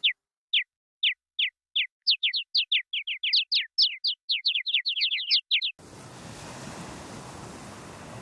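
Birdsong sound effect dubbed over dead silence: a run of short chirps, each sliding downward, spaced at first and then quick and overlapping. It cuts off about six seconds in, and a steady rushing machine noise takes over.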